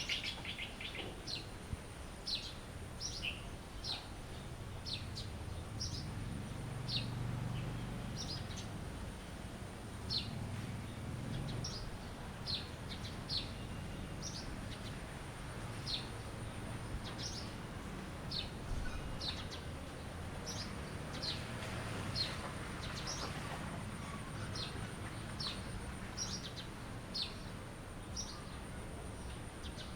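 Small birds chirping: a steady string of short, high, downward-sliding chirps, about one or two a second, over a low, steady background rumble.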